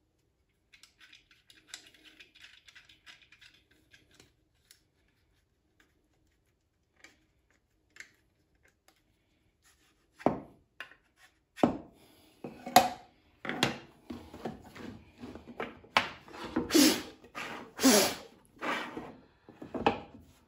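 Handling noise of a 3D-printed plastic kerfmaker jig and plywood strips on a plywood table-saw sled. At first there is faint rubbing and small clicks. From about halfway there is a run of about a dozen knocks and scrapes as the jig is set down and slid against the sled's fence.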